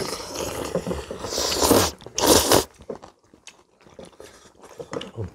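People eating kimchi kalguksu noodles: a couple of loud slurps of noodles and broth in the first three seconds, then soft chewing with a few light clicks.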